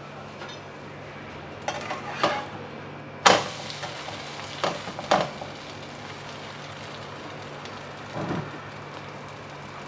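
Bread omelette sizzling steadily in a nonstick frying pan, while a metal spatula scrapes and knocks against the pan as the slice is flipped. There are a few sharp clatters in the first half, the loudest about three seconds in, and a softer one near the end.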